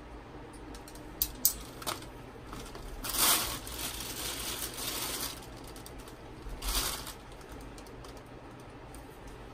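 Hands handling small parts on a workbench: a few light clicks about a second in, then two stretches of rustling, crinkling noise, the louder starting near 3 s and a shorter one near 7 s.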